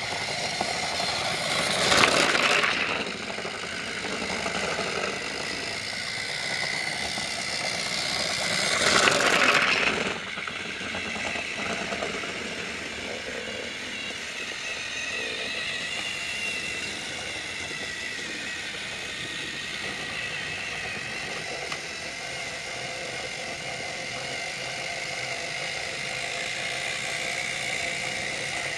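Battery-powered Trackmaster motorized toy train running on plastic track: a steady electric-motor whir with a thin whine. It swells loudly twice, about two and nine seconds in, then runs on evenly.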